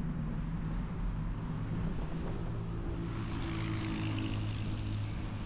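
Motor vehicle engine running steadily in street traffic, a little louder from about three seconds in.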